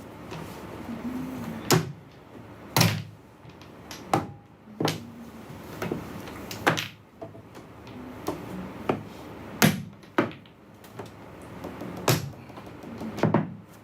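Mahjong tiles clacking: about a dozen sharp clicks at irregular intervals, roughly one a second, as tiles are knocked against each other and onto the table.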